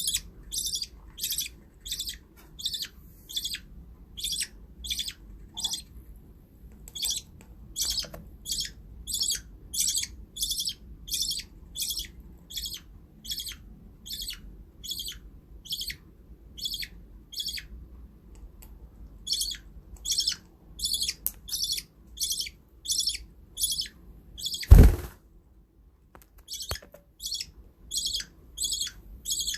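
Baby budgerigar calling over and over, short high chirps about twice a second with a brief pause midway. A single loud thump near the end.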